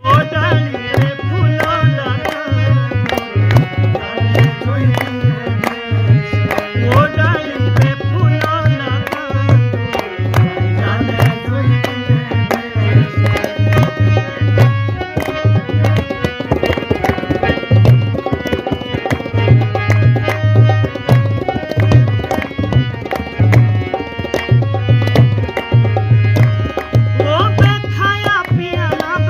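Himachali nati folk music: a hand drum keeps a steady, fast dance beat under a melodic lead.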